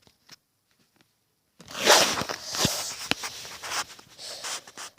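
Rustling and scraping handling noise with a few sharp clicks, starting suddenly after a second and a half of near silence, as hands move close to the recording device.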